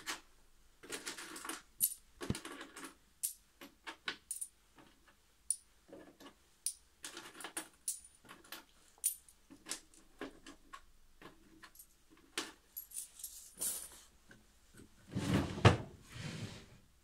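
Coughing in short bursts, the longest and loudest near the end, with many sharp clicks in between.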